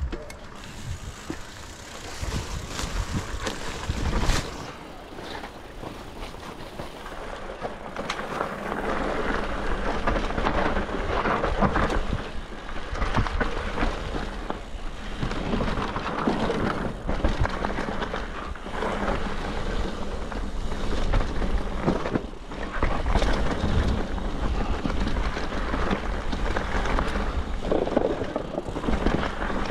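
Mountain bike riding down a forest dirt trail: tyres crunching over dirt and roots, the bike rattling over bumps, with wind rumbling on the camera's microphone. Near the end the tyres run over a wooden plank bridge.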